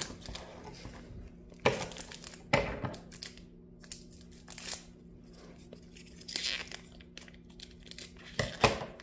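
Foil Pokémon booster pack wrappers being torn open and crinkled by hand, in several short rustling bursts.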